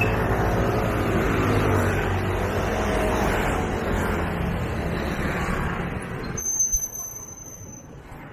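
Street traffic: a motor vehicle running close by, its noise dropping away suddenly about six seconds in, then a thin high squeal lasting about a second and a half.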